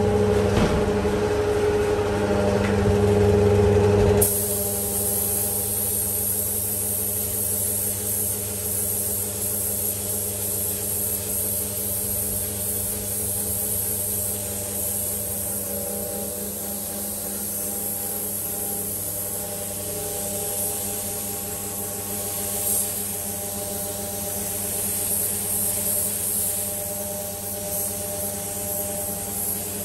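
A small gravity-feed spray gun hissing steadily as it lays the first colour coat of blue paint, over a steady motor hum. The hiss comes in abruptly about four seconds in; before that only the hum is heard.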